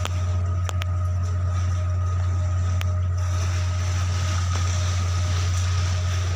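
A ship's diesel machinery running steadily, a deep even hum with a faint higher whine on top.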